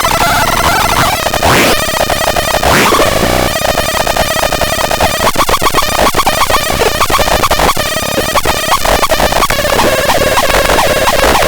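Loud, harsh electronic noise sounds: sweeping pitch glides in the first few seconds, then rapid stuttering pulses, all over a dense wash of noise.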